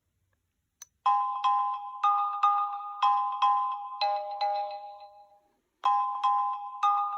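Sony Xperia Z5 Compact ringtone playing: a short melody of sharply struck notes, about two a second. The phrase fades away about five seconds in and starts over almost at once.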